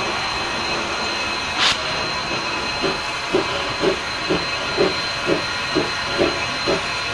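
Narrow-gauge steam locomotive starting away: steady hiss of steam with a brief burst about one and a half seconds in, then exhaust chuffs that begin about three seconds in at roughly two a second and quicken slightly as it gathers speed.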